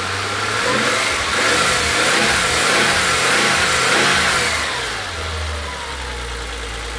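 BMW M20B20 2.0-litre inline-six, freshly started after a cylinder-head rebuild and camshaft replacement and still without coolant, revved up and down several times from idle. It settles back to a steady idle after about five seconds.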